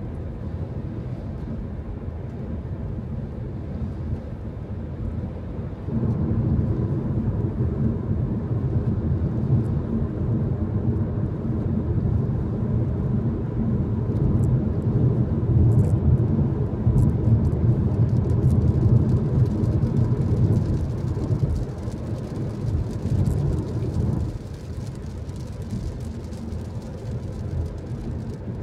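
Road noise inside a moving car's cabin: tyres on a wet road and the engine make a steady low rumble that grows louder about six seconds in and drops back a few seconds before the end.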